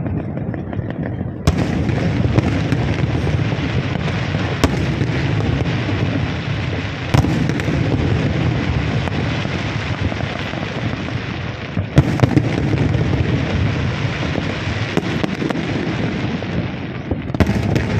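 Aerial fireworks going off: a continuous run of bursts and crackle, with about five sharper, louder bangs standing out, the loudest about twelve seconds in.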